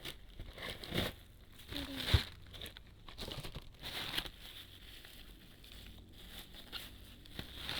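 Plastic packaging crinkling and tearing as a parcel is opened by hand, in irregular bursts, with a sharp knock about two seconds in.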